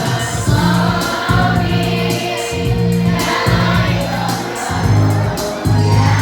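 A choir singing with accompaniment, over a low bass line that moves in evenly repeated held notes.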